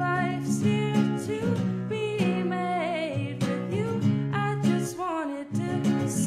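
A woman sings an original folk song over two acoustic guitars being strummed, with a short lull about five seconds in.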